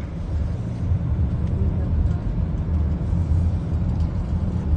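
Steady low rumble of a car on the move: engine and road noise heard from inside the cabin.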